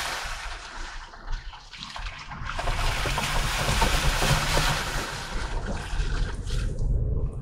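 Dacia Duster SUV driving over an off-road track: a low engine rumble under a steady rushing noise from the tyres on wet ground. The rushing drops away about a second in and builds again soon after.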